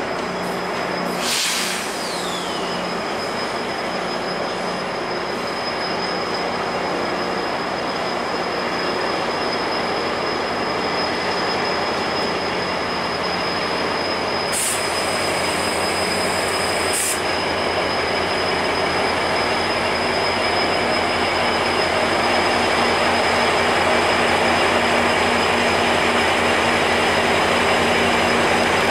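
Slow-moving GO Transit bilevel commuter train running through the switches and curves into the station, its wheels squealing with a steady high screech over a low rumble. About a second in, a sharp squeal drops in pitch, and about halfway there is a high hiss lasting roughly two and a half seconds.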